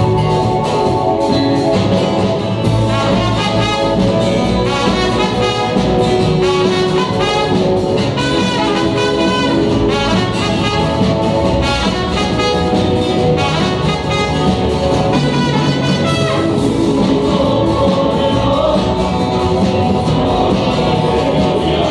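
Live church worship music: electric bass and guitars playing with a group of voices singing.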